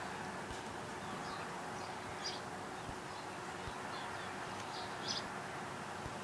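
A few short, faint bird chirps over a steady background hiss.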